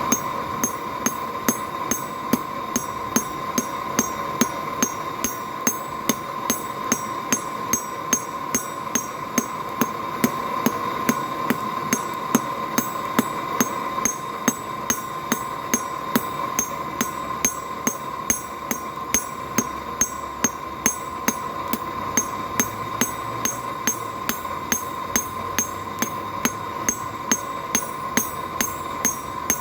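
Blacksmith's hand hammer striking hot mild steel on an anvil, about two even metallic blows a second, drawing the buckle's needle out thinner. A steady hum runs underneath.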